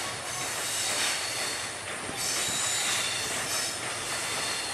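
Diesel-hauled passenger train rolling slowly through a curve, its wheels squealing against the rails in several high steady tones over the rumble of the locomotive and wheels. The squeal tones shift about two seconds in.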